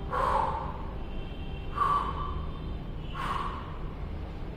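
A woman breathing hard, three short breaths about a second and a half apart.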